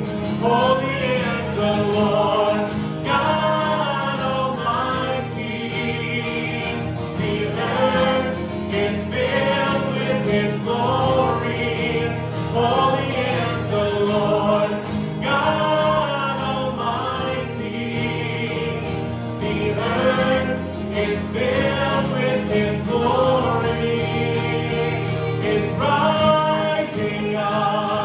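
Live worship song: a man and a woman singing together to an acoustic guitar, over steady held low notes.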